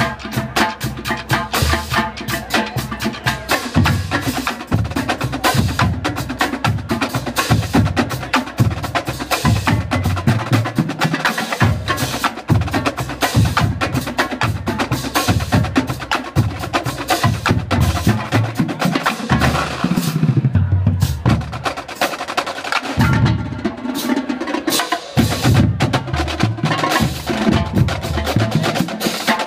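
A marching drumline playing a cadence: snare drums in rapid, tight strokes and rolls over tenor drums, bass drums and cymbals, with steady low bass-drum hits.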